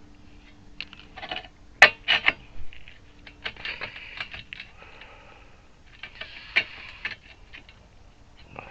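Steel parts being handled and set in place: irregular metal clicks and clinks with short stretches of scraping, the sharpest clinks about two seconds in and again about six and a half seconds in.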